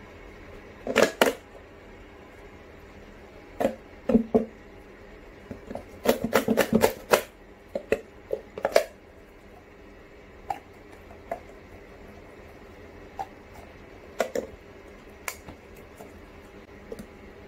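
Silicone collapsible water bottle handled and squeezed down in the hands, giving short clicks and rubbing noises. These come in quick clusters over the first nine seconds, then only as scattered single clicks, over a steady faint hum.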